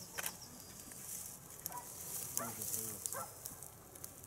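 Footsteps rustling and crackling through dry meadow grass, with a few faint, short voice-like sounds about halfway through.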